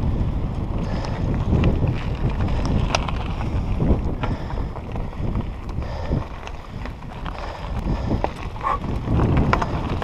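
Wind buffeting an action-camera microphone in a steady low rumble, with scattered clicks and crunches from mountain-bike tyres rolling over rocky dirt and gravel.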